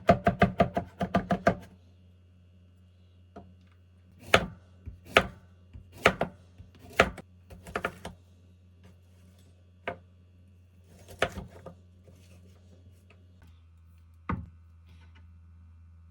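Kitchen knife chopping on a cutting board: a quick run of strokes, about six a second, for the first second and a half, then single slower chops spaced roughly a second apart with longer gaps near the end.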